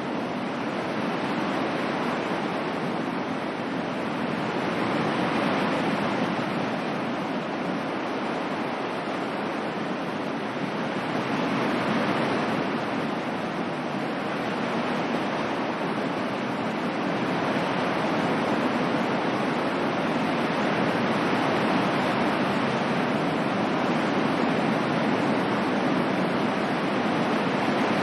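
Ocean waves on a shore, a steady wash of surf that swells and eases slowly every several seconds, used as white noise.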